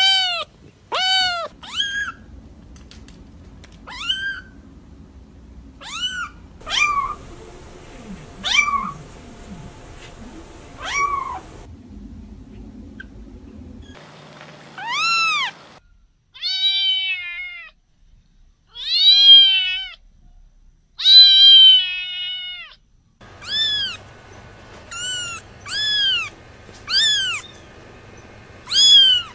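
Kittens meowing, several in turn: short, high-pitched mews every second or two, with a few longer, louder meows in the middle.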